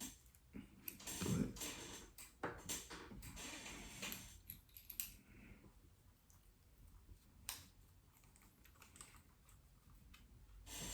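Faint tapping and clicking of fingers handling an iPad Mini's glass and frame: a quick flurry of small clicks and rustles in the first half, then a few scattered clicks, one sharper about seven and a half seconds in.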